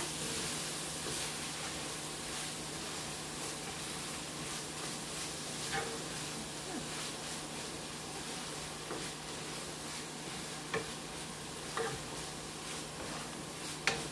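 Ground beef filling sizzling in a stainless steel skillet as it is stirred with a wooden spatula, a steady hiss with a few knocks of the spatula against the pan, the loudest near the end.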